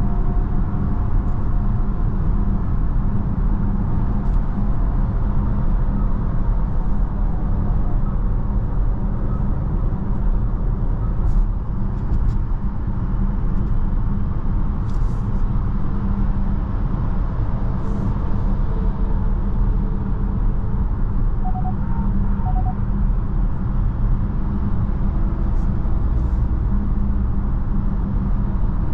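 Steady tyre and wind noise inside the cabin of a Kia EV6 electric car cruising at motorway speed, mostly a low rumble of the tyres on the road.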